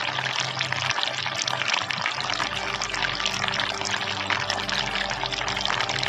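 Water pouring and splashing steadily down the stepped ledges of a cement tabletop waterfall fountain, with background music of sustained low notes.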